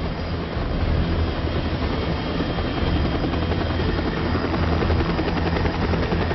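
U.S. Coast Guard MH-60 Jayhawk helicopter running loudly as it lifts off, a steady heavy rotor and turbine noise.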